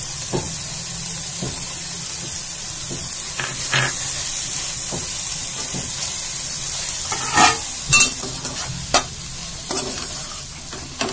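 Leafy greens and peanut powder sizzling in a hot metal pan as they are stirred and tossed with a spatula. A steady frying hiss runs under scattered scrapes and clinks of the spatula against the pan, which are most frequent in the second half.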